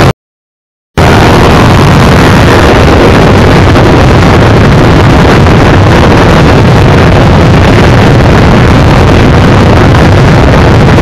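Motorcycle running flat out at top speed, its engine buried under heavy wind noise on the microphone. The recording is very loud and overloaded. It cuts out to silence for about a second near the start, then carries on unchanged.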